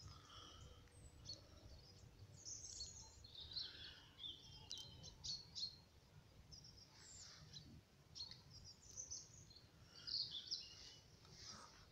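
Small birds chirping faintly in scattered short calls, over a low steady rumble.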